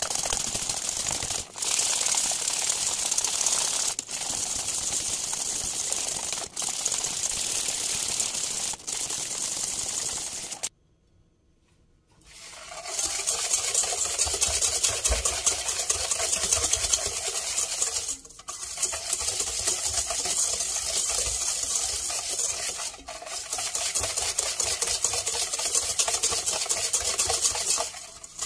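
Wire balloon whisk beating eggs and sugar in a stainless steel bowl until the sugar dissolves: a fast, steady metallic rattling and scraping. It is broken by several brief dips and by about a second and a half of silence a little over a third of the way in.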